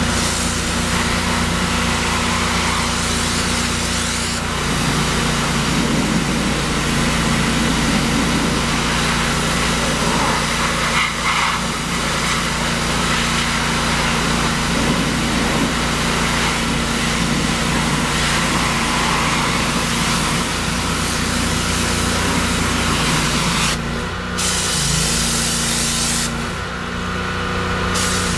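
Hot-water pressure washer spraying a semi-tractor's wheels and chassis: a steady hiss of spray over a constant engine hum. The spray cuts out briefly twice near the end.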